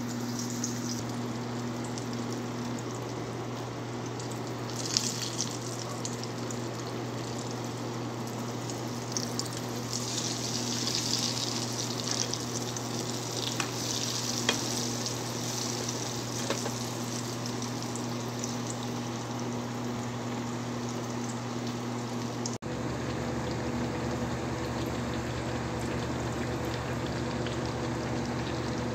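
Flour-coated eggplant slices sizzling in hot oil in a frying pan, a steady hiss with scattered crackles and occasional sharper pops. A steady low hum runs underneath.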